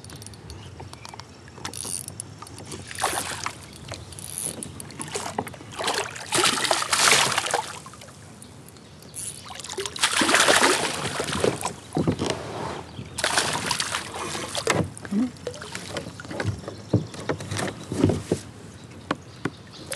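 A hooked smallmouth bass thrashing and splashing at the water's surface in several bursts, the biggest about ten seconds in. Near the end come shorter sharp splashes and knocks as the fish is netted beside a kayak.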